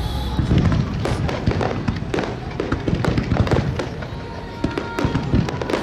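Rapid barrage of aerial fireworks: many shell bursts and crackles in quick succession, with low booms underneath.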